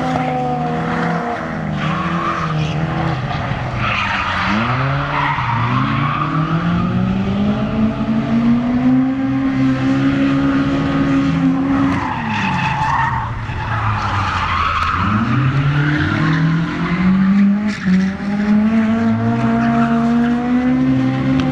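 Car engine revved hard through drifts, its pitch climbing and holding high, dropping sharply about midway, then climbing again, with tyres squealing and skidding under the sliding car.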